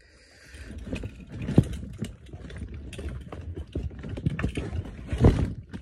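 Plastic pop tube fidget being stretched and squashed, giving a rapid, irregular run of clicks and crackles with handling knocks, two louder knocks about a second and a half in and near the end.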